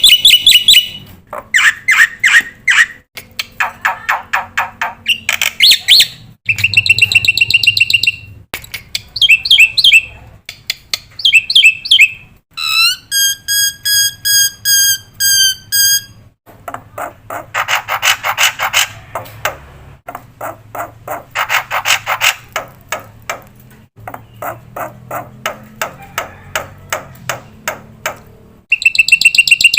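Black-winged myna (jalak putih) song from a bird-training recording: loud bursts of rapid repeated chirps and trills, each a second or two long, one after another. Around the middle comes a run of about nine evenly spaced, steady-pitched squeaky notes.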